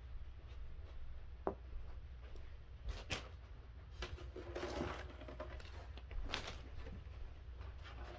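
Faint scattered knocks and clicks, with a short stretch of rubbing or creaking in the middle, as wooden crib parts are handled and moved.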